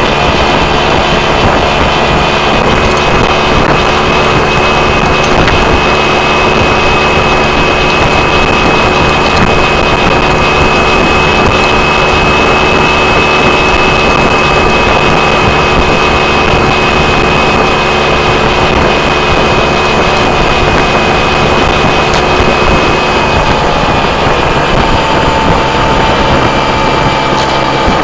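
Motorcycle engine running at a steady cruising speed under a steady rush of wind and road noise. The engine note shifts slightly about three-quarters of the way through.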